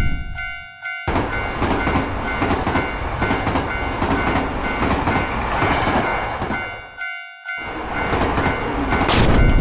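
Japanese railroad crossing bell ringing its repeating 'kan-kan', while a train rushes through for about six seconds. The bell is briefly heard alone before another train sound starts, and there is a sharp crash-like noise near the end.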